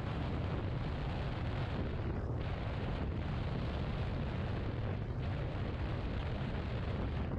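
Wind buffeting the microphone of a camera on a maxi scooter at road speed: a steady, heavy low rumble of rushing air with road and engine noise mixed in.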